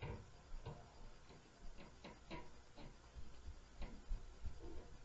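Irregular thuds and knocks from the apartment upstairs, heard through the ceiling: footsteps and bumps of neighbours walking and stomping, coming about every half second with uneven gaps.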